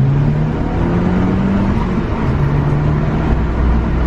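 Audi S3 engine accelerating hard, rising in pitch, dropping briefly about two seconds in at a gear change, then pulling up again. It is the test drive after new spark plugs to cure a misfire, and the car pulls strongly.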